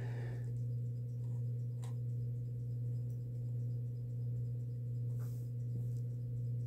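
Steady low electrical hum with a faint buzz above it, and two soft clicks about two and five seconds in.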